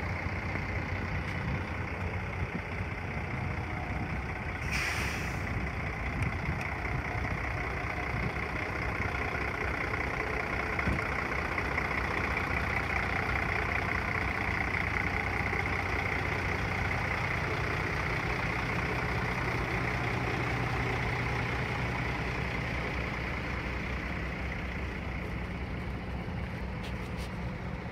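Freightliner semi truck tractor's diesel engine idling steadily, with a brief hiss about five seconds in.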